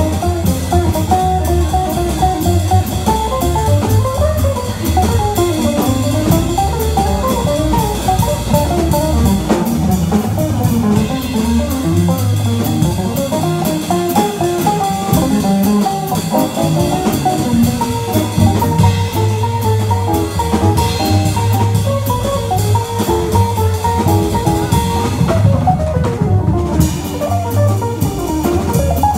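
Live jazz: an electric jazz guitar plays a fast single-note solo line over double bass and a drum kit with steady cymbal time, while the tenor sax and trumpet stay silent.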